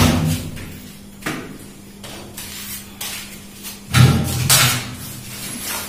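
Scattered knocks, clicks and scrapes as a wall-hung vanity cabinet and its basin are handled and fitted against a tiled wall, the loudest a thump about four seconds in followed by a scrape. A faint steady low hum runs underneath.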